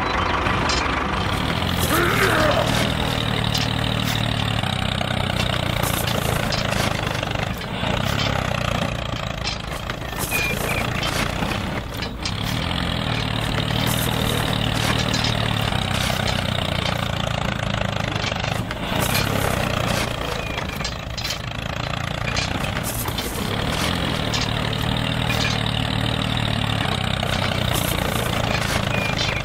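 A tractor engine running steadily, with a low even rumble that dips slightly in loudness now and then.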